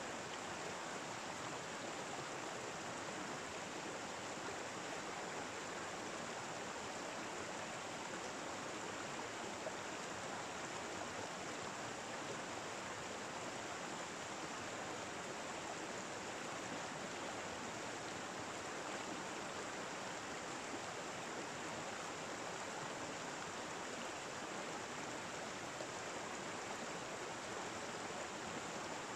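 Steady rush of flowing stream water, an even, unbroken wash with no changes.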